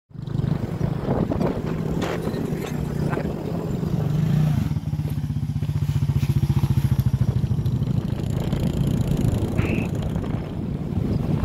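Motorcycle engine running at low road speed with a steady throb that pulses more strongly in the middle, mixed with a few short knocks and rattles.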